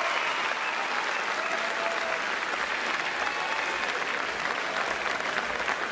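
Spectators in a sports hall applauding steadily at the end of a game of badminton.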